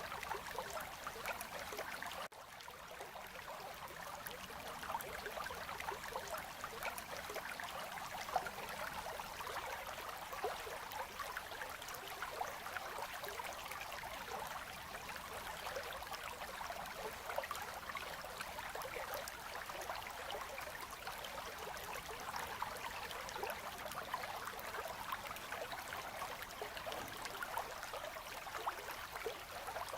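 Winter river current running steadily past ice, with a continuous gentle babbling and gurgling of water.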